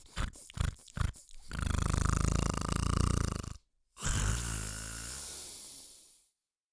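A person imitating loud snoring: a run of short snorts, then two long, loud rasping snores a moment apart, the second fading away. It stops about six seconds in.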